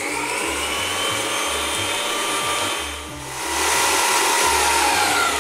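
Electric stand mixer running with its whisk beating eggs and sugar into a foam, a steady motor whine that wavers slowly in pitch and grows louder about three and a half seconds in.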